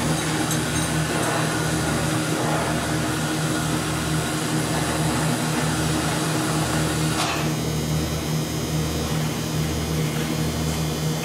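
A steady low mechanical hum, pulsing slowly in the low end, with a change in the higher tones about seven seconds in.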